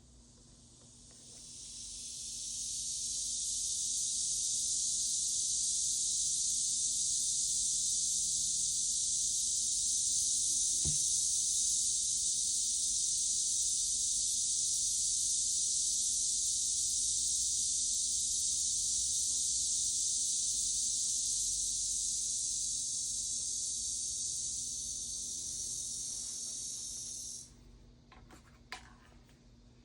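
Aerosol can of spray varnish spraying in one long, steady hiss that builds up over the first couple of seconds and cuts off sharply a couple of seconds before the end.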